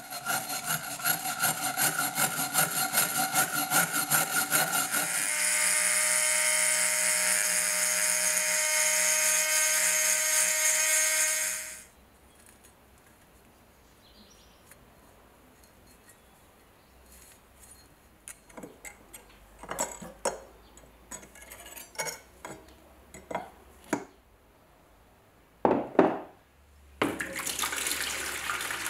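A power tool works the rusty blade, first with a pulsing contact and then with a steady motor whine, and cuts off sharply about 11 seconds in. Light clicks and scrapes of handling follow, then a single knock, and near the end water pours from a bottle into a plastic tub.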